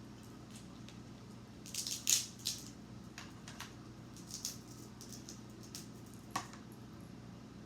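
Eating crab legs: shells cracking and being picked apart, a cluster of crisp crackles about two seconds in, then scattered smaller snaps and one sharp snap near the end, over a faint steady hum.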